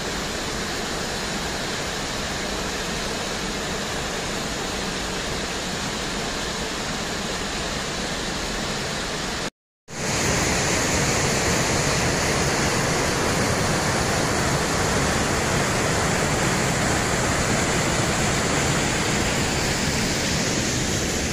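Steady rush of a small waterfall pouring into a pool, cut off briefly about ten seconds in, then a louder steady rush of whitewater cascading over rock ledges in a creek.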